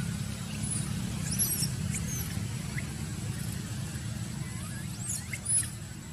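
Newborn macaque infant giving a string of brief, high-pitched squeaks, the loudest about five and a half seconds in, over a steady low rumble.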